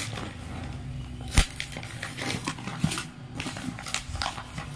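Paper instruction booklet being handled and its pages turned, a scattered rustling and crackling with several small clicks and one sharper tap about a second and a half in.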